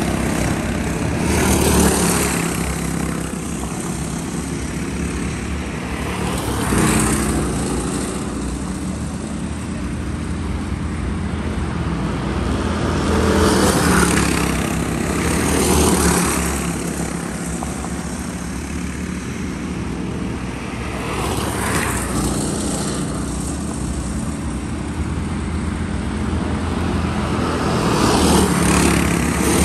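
Racing go-karts with Predator single-cylinder four-stroke engines running at speed. The engine note swells and fades again and again as karts pass close by.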